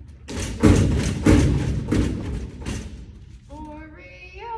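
About five heavy thumps in under three seconds, typical of a vending machine being hit or banged on to free a stuck snack.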